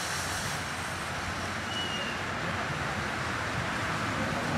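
Live-steam miniature locomotive standing in steam, hissing steadily as steam vents from its stack, over a low rumble.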